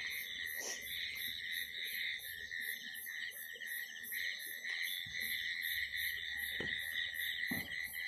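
Night chorus of crickets and frogs: a steady high trill with a faster pulsing chirp above it, repeating about three times a second.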